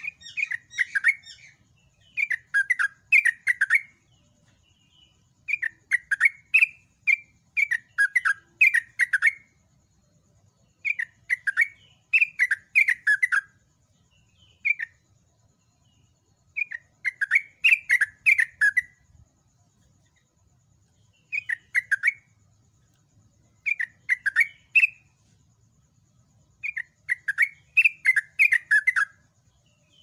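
Yellow-vented bulbul (trucukan) singing loudly in repeated bursts of quick, bubbly, chattering notes, each burst one to three seconds long, with short pauses between.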